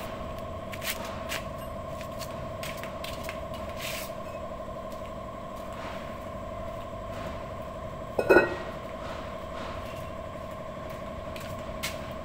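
Light metal knocks and scrapes as a brake drum is worked onto a truck's rear hub, over a steady two-tone hum, then a single loud ringing metallic clang about eight seconds in.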